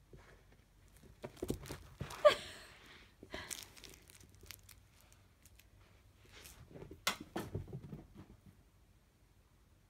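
Irregular rustling, scuffing and crinkling from a kitten playing with a dragonfly cat toy, a hand handling the toy, and the phone being moved. A short, sharp sound about two seconds in is the loudest, and a second cluster of scuffs comes around seven seconds in.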